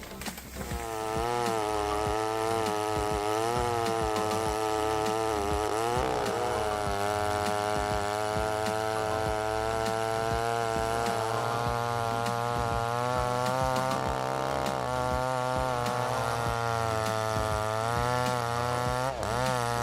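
Chainsaw engine running under load while cutting wood, its pitch wavering steadily, with a dip and recovery about six seconds in and again near the end.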